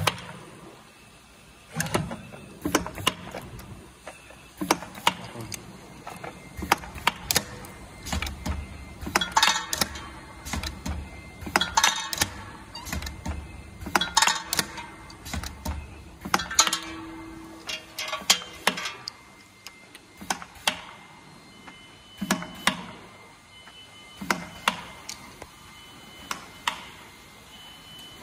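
Semi-automatic lip gloss and mascara filling and capping machine at work: its rotary table indexing and its filling and capping heads moving, giving irregular sharp clicks and clacks a second or two apart, busier in the middle.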